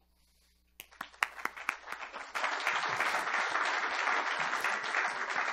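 Audience applauding: a few scattered claps start about a second in and swell into full, steady applause after about two seconds.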